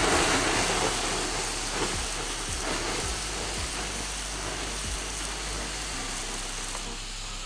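Water from a garden hose hitting red-hot binchotan charcoal: a loud hiss and sizzle of water flashing to steam, with scattered crackles, as the charcoal is put out. It starts suddenly and slowly grows quieter.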